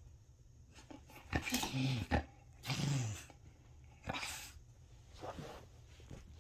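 Bull terrier making two short, low vocal sounds that fall in pitch, about a second and a half and three seconds in, followed by a sharp breathy sound about four seconds in.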